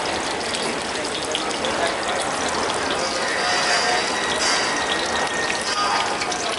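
Chopped onions sizzling in hot oil in a large enamelled steel paella pan: a steady, dense crackle of many small pops.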